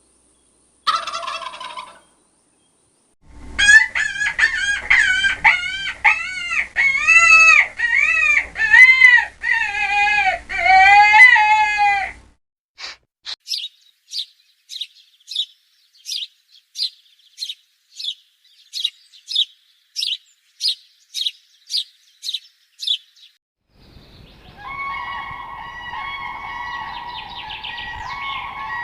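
Calls of domestic fowl in several separate bursts: a run of loud, repeated arching calls, then a long string of short high chirps at about two a second, and near the end a steadier, drawn-out droning call.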